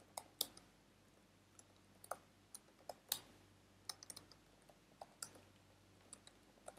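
Typing on a computer keyboard: faint, irregular keystroke clicks, about two or three a second, as a line of text is entered.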